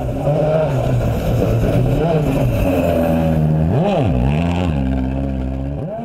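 Citroën DS3 WRC rally car's 1.6-litre turbocharged four-cylinder engine driving hard past on gravel. The engine note rises and falls with the throttle and gear changes, with a quick rise and fall in revs about four seconds in and the revs climbing again near the end.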